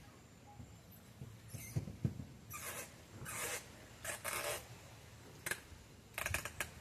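Hose being fitted onto a pool filter pump's plastic connection: a couple of knocks, then several short scraping rubs of plastic against plastic, and a quick run of clicks near the end.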